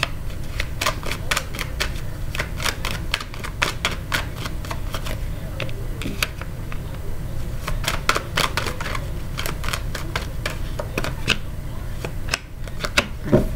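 Tarot cards being pulled from the deck and laid down on a cloth-covered table: a quick, irregular series of card clicks and flicks, over a steady low hum.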